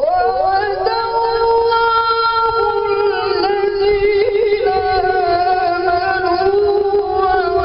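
A male qari reciting the Quran in melodic tajweed style: one long phrase of high, sustained notes with quick ornamental wavers, opening with an upward slide.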